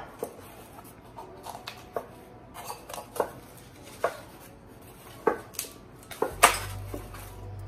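Cardboard plant-shipping insert and paper wrapping being handled as a potted plant is worked loose: rustling with irregular taps, knocks and scrapes, the sharpest about six and a half seconds in.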